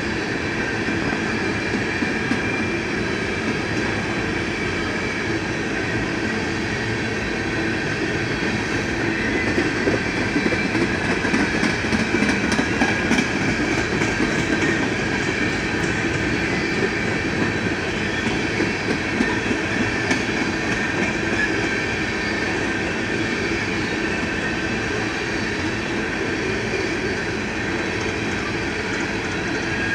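BNSF coal train's freight cars rolling past close by: a steady rumble and rattle of steel wheels on rail, with a faint high ringing tone above it. It grows a little louder about ten to fifteen seconds in.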